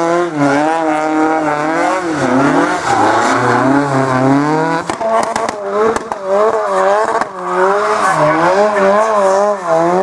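Rally car engines held at high revs through doughnuts, the pitch wavering up and down as the spinning tyres squeal: first a rear-wheel-drive Ford Escort, then, about five seconds in, a Renault 5 Turbo.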